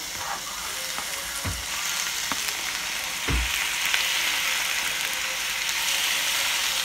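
Cubes of raw chicken breast sizzling in hot oil in a frying pan as they are scraped in off a cutting board, the sizzle growing louder as more pieces go in. Two dull knocks come about a second and a half and three and a half seconds in.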